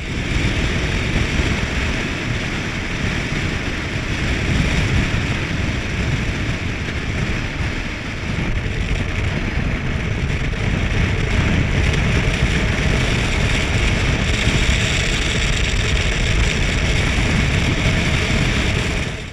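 Steady rush of wind buffeting a vehicle-mounted action camera's microphone, over tyre and road noise from a van driving along a paved highway.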